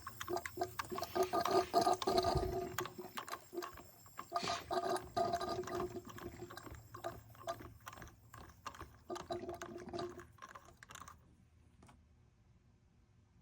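Coolant gurgling and bubbling in the Ford F-150's cooling system as compressed air from a leak-down tester escapes through a blown head gasket. It comes in irregular spurts that fade out about eleven seconds in.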